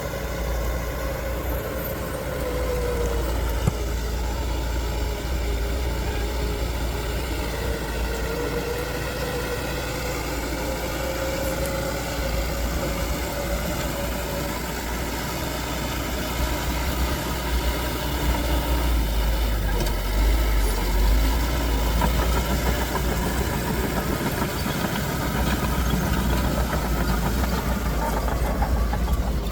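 Diesel engine of heavy earthmoving machinery running steadily with a deep rumble and a faint wavering whine, growing a little louder about halfway through.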